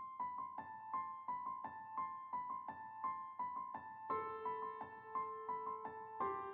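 Instrumental intro music: a keyboard plays a quick repeated high figure, about three notes a second, and a held lower note joins about four seconds in.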